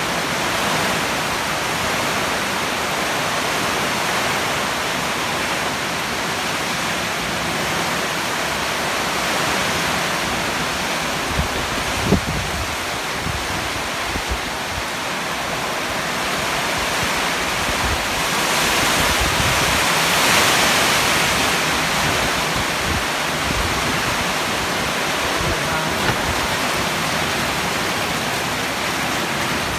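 Heavy typhoon rain and strong wind: a steady rush of downpour, with a gust swelling about twenty seconds in. Two brief knocks about twelve seconds in.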